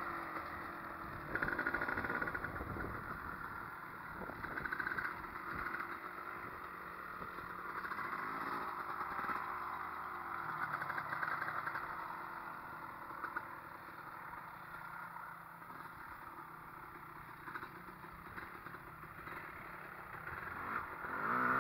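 Two dirt bikes running at a distance as they ride around: a Honda CR250 two-stroke and a small Honda CRF50, their engines revving up and easing off. The sound swells and fades as they come and go, quietest in the latter half and rising again at the end.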